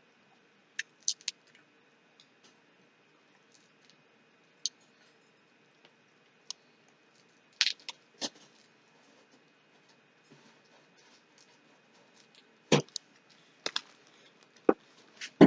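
Crab leg shells cracking and snapping as they are broken apart by hand: scattered sharp clicks a few seconds apart, with a cluster of louder cracks near the end.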